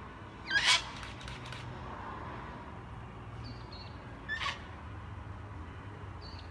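Sulphur-crested cockatoo giving two loud, harsh screeches, one about half a second in and another about four seconds later.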